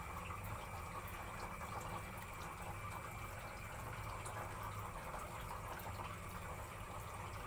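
Faint water moving in a shallow plastic breeding tub over a steady low hum, with a few small ticks.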